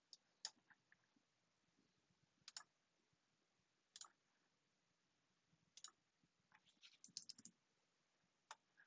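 Faint, scattered computer mouse clicks: single clicks a second or two apart, with a quick run of clicks about three-quarters of the way through.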